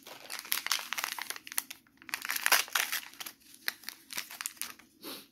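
Crinkling of a Stikeez toy's small plastic wrapper packet as it is handled and opened: a dense crackle with a brief pause about two seconds in.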